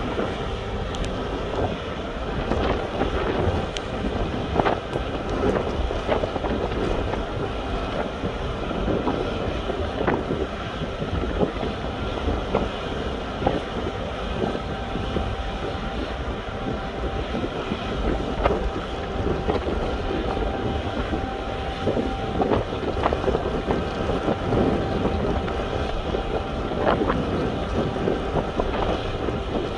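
Steady din of ship machinery running, with wind on the microphone and scattered small metallic clanks; a faint steady whine comes in for a few seconds near the middle.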